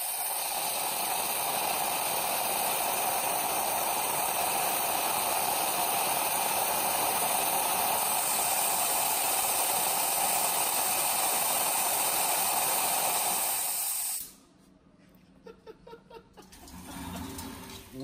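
Waterjet cutter's 60,000 PSI nozzle firing pure water at full pressure onto a coffee pod and mug: a steady hiss of the jet and its spray that cuts off suddenly about fourteen seconds in.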